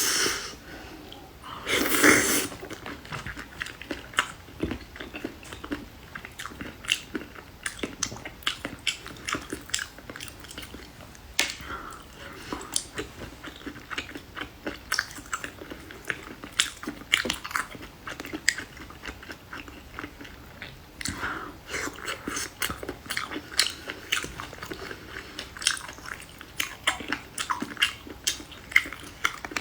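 Close-miked chewing and mouth sounds of someone eating rosé tteokbokki, chewy rice cakes in a creamy sauce: a steady run of small wet clicks and smacks, with one louder burst about two seconds in.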